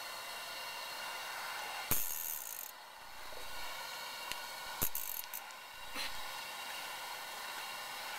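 Ice-fishing reel's drag giving line in two short bursts, about two and five seconds in, as a hooked walleye runs, with a few sharp clicks.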